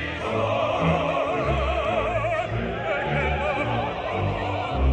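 Live opera: a singer's voice with strong vibrato over an orchestra playing sustained low notes, sung without microphones.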